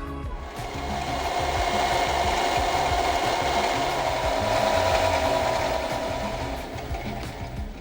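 Small benchtop metal lathe running slowly while a hand-fed form tool cuts a curved profile into a washer blank: a steady scraping hiss with a whine in it, swelling in and fading out near the end.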